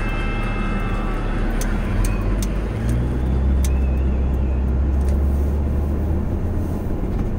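Car driving on a wet road, heard from inside the cabin: steady tyre and road rush with a low engine rumble that grows stronger about three seconds in. A few light clicks come around two seconds in.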